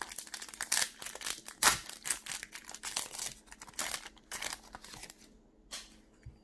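Foil wrapper of a Pokémon Cosmic Eclipse booster pack being torn open and crinkled by hand: a dense run of crackling rips, loudest about a second and a half in, dying away after about five seconds.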